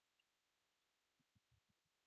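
Near silence: a faint even hiss, with a few very faint low thumps in the second half.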